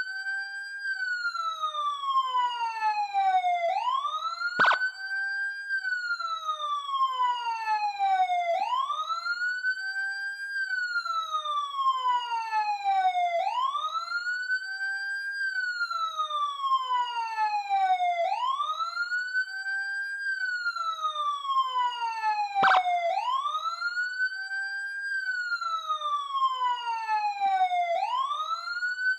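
Police siren sounding a slow wail, sweeping up quickly and then falling away slowly, over and over about every five seconds. Two sharp clicks cut in, about five seconds in and again about three-quarters of the way through.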